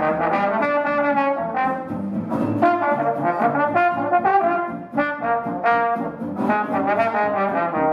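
Live small traditional jazz band playing, with a trombone carrying the lead line over guitar and upright bass in a steady run of quick notes.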